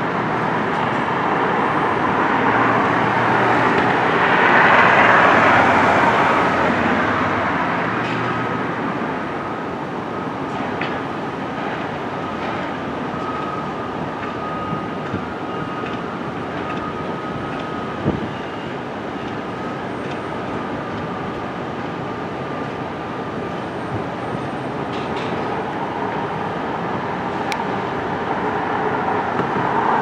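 Steady mechanical rumble of engines or machinery outdoors, swelling about five seconds in, with a thin steady whine through the middle and a single sharp click partway through.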